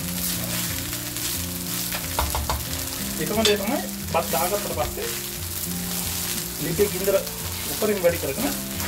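Egg fried rice sizzling in oil in a nonstick pan as a spatula stirs and turns it, the rice rustling and the spatula scraping the pan about three seconds in and again near the end.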